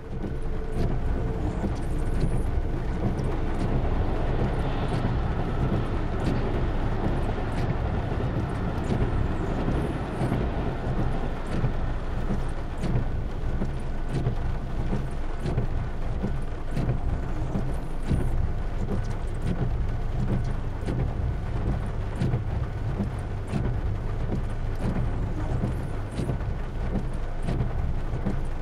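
Rain at a railway level crossing over a steady, loud low rumble of passing traffic.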